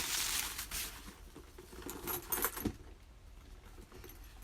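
A handbag being handled, its metal hardware clinking and jingling in a few short clusters, with rustling at the start.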